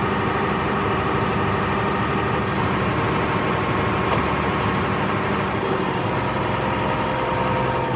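Heavy farm diesel engine running at a steady speed, with a single click about four seconds in.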